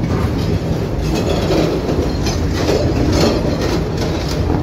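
Inside a moving 71-605 (KTM-5M3) tram: the steady rumble of the car running on the rails, with repeated clacks and rattles from the wheels and body.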